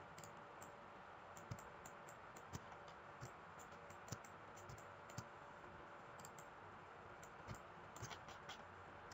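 Faint, irregular clicks of a computer mouse over a steady low hiss, with a quick run of several clicks near the end.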